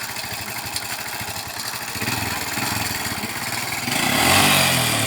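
An engine running with a rapid, even pulse, growing louder about two seconds in and revving up in pitch about four seconds in.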